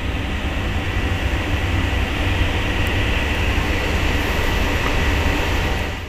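Steady rumbling background noise of a store, a low rumble under an even hiss, with no distinct events.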